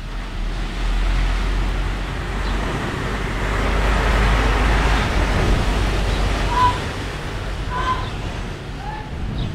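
Outdoor background noise: a steady low rumble under a rushing hiss that swells in the middle. Three short chirps come near the end.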